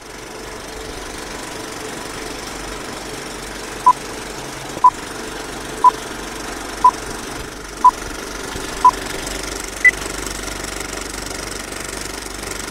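Film countdown leader: a steady film-projector clatter runs throughout, with short beeps once a second, six at the same pitch and then one higher beep near the end.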